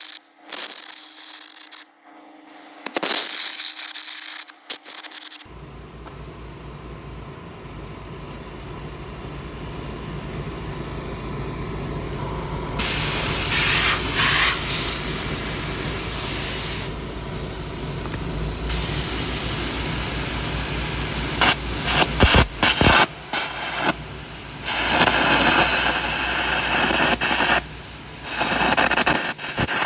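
Short bursts of grinding on steel for the first few seconds. Then an engine starts and runs steadily, under long, loud hissing bursts that stop and start, typical of air carbon-arc gouging out the cracks in the thumb's bosses.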